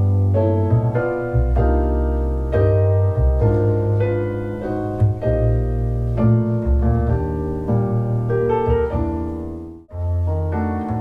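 Piano music over deep, sustained bass notes, played as a sound demo of a small ported subwoofer. The music cuts out for a moment near the end and starts again.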